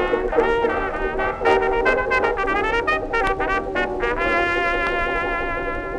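Closing instrumental bars of an Edison disc record: a small dance band led by brass plays a quick run of notes, then settles into a long held final chord about four seconds in.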